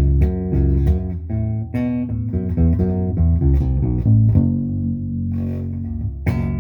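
Lyle 5120 full-hollow, short-scale electric bass played with only its neck pickup on: a run of plucked notes, then a note held for about two seconds before a sharp new pluck near the end.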